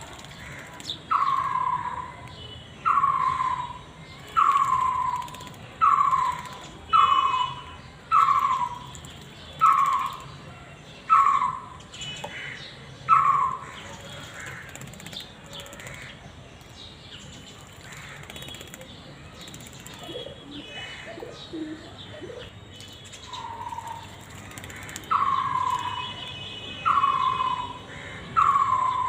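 A bird calling a single falling whistled note over and over, roughly every one and a half seconds. The calls stop for about ten seconds midway, then start again.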